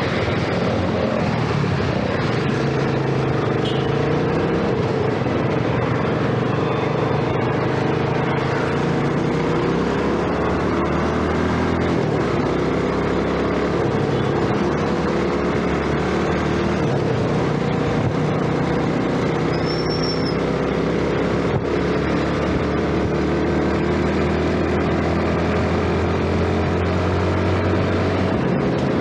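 Yamaha underbone motorcycle's small single-cylinder engine running as the bike rides along, its pitch climbing slowly in stretches as it picks up speed, over a steady rush of wind and road noise.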